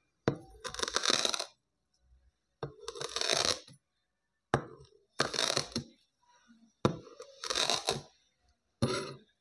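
Kitchen knife slicing down through a disc of kinetic sand: five crisp, crunching cuts about two seconds apart. Each opens with a sharp tap of the blade on the hard surface beneath.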